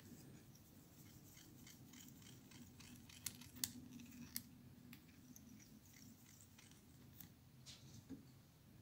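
Faint handling noises of fly tying: a scatter of light clicks and ticks, with three sharper clicks around the middle, as thread is wrapped from a bobbin holder around the head of a caddis fly held in the vise. A faint low hum lies underneath.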